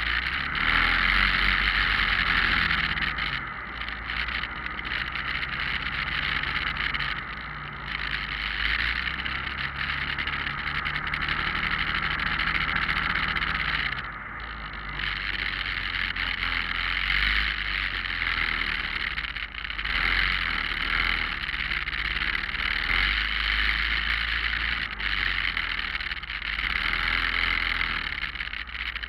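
Motorcycle engines in a slow group ride, heard from on board one of the bikes: a continuous engine note under a steady hiss. The throttle opens and eases off, so the sound dips briefly every few seconds.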